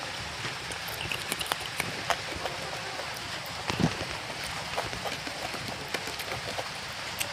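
Close-miked eating: chewing with small wet mouth clicks, and fingers mixing rice and curry on a plate, over a steady hiss. A heavier, lower chew or squish stands out about four seconds in.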